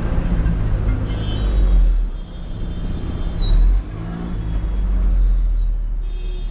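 Interior of a city bus: steady low engine rumble and road noise, with brief high-pitched squeals about a second in and again near the end.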